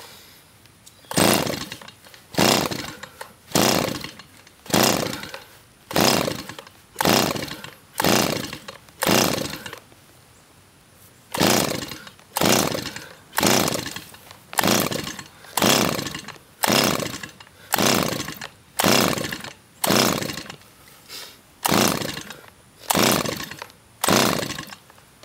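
A Stihl 028 AV Wood Boss two-stroke chainsaw being pull-started on full choke: about twenty rapid pulls of the recoil starter, each a rasp of rope and engine cranking over that falls in pitch as the pull runs out, in two runs with a short pause after the eighth. The engine turns over but does not catch, a saw that has been hard to start because of fuel-system trouble.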